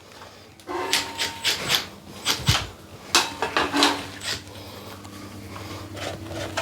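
Steel drywall blade scraping as it spreads and glazes joint compound over a taped ceiling patch, a run of short scraping strokes that dies down near the end.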